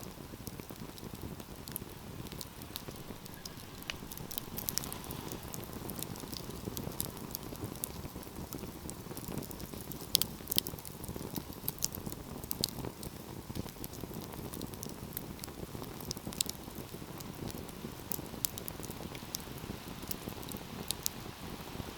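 Wood fire burning with a steady low rush of flames and frequent sharp crackles and pops scattered throughout, a couple of louder pops about halfway through.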